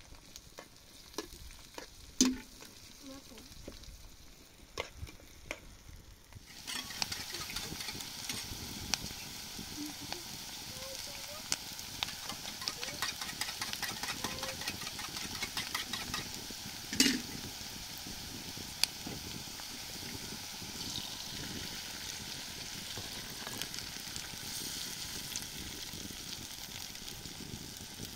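Food frying in a pan: a steady sizzle that starts suddenly about six seconds in, with occasional sharp knocks of a utensil against the pan.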